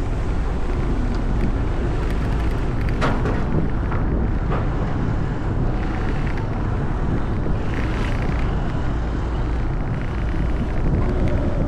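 Steady vehicle engine noise with wind rushing over the microphone, broken by a couple of short knocks.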